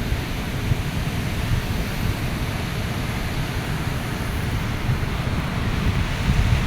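Steady rushing noise of falling water, with wind buffeting the microphone in uneven low rumbles.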